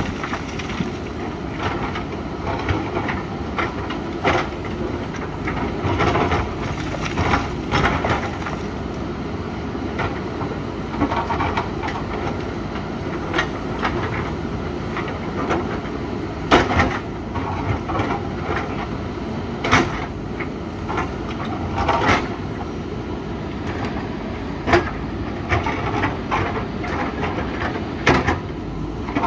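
JCB 3DX backhoe loader's diesel engine running steadily as its bucket scrapes and digs into rock, with irregular sharp knocks and crunches of stone every few seconds.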